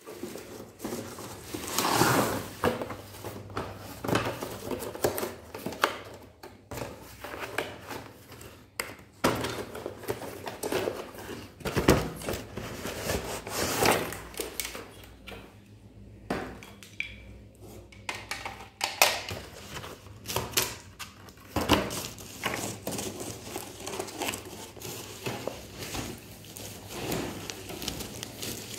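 Hands opening a cardboard shipping box and unpacking a ring light with its cables: irregular rustling and scraping with scattered clattering knocks.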